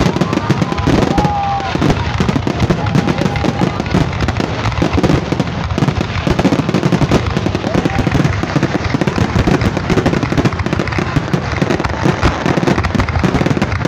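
Aerial fireworks in a finale barrage: shell bursts and crackling packed so close together that they run into one continuous loud rumble, with a few whistling glides near the start.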